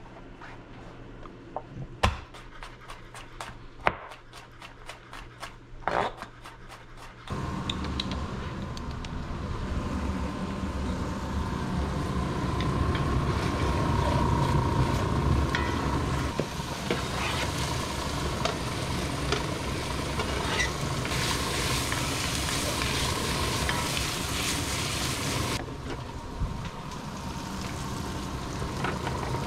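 Chef's knife chopping garlic on a cutting board: single knocks and quick runs of chops. After about seven seconds, diced onion sizzling steadily as it fries in a Dutch oven, stirred with a wooden spoon.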